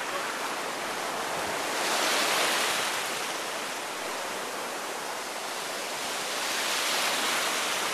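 Shallow surf washing up the sand in a steady hiss, swelling louder about two seconds in and again near the end as waves run in.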